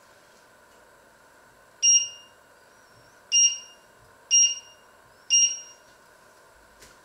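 Touch-control panel of a glass-top electric hob beeping four times, one short high beep for each button press as the cooking zone's power is set.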